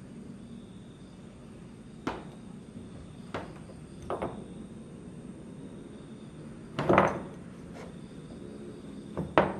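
A handful of sharp knocks and clinks of shoes and a small glass bottle on bare wooden floorboards. The loudest and longest comes about seven seconds in, and two more come close together near the end.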